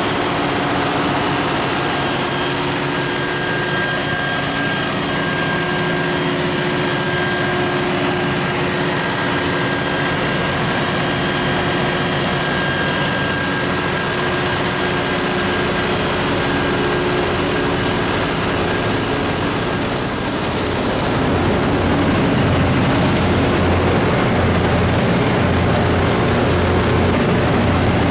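MTU 12V4000 V12 diesel engine of a 1650 kW generator set running steadily at constant speed, a loud even drone with fixed whining tones over it. About two-thirds of the way through, a heavier low rumble comes in and stays.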